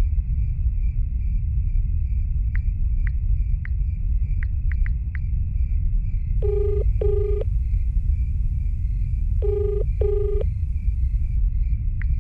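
A mobile phone's keypad ticks as it is tapped several times, then a call's ringback tone sounds in the earpiece: two short beeps in quick succession, heard twice about three seconds apart. This is the double-beep ringing pattern used on Indian phone networks. A steady low rumble runs underneath.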